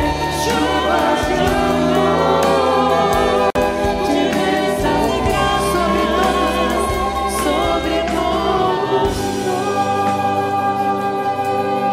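A choir sings a Portuguese devotional song with instrumental accompaniment, the lines "de bênçãos e graças, sobre todos nós". The sound cuts out for a split second about three and a half seconds in.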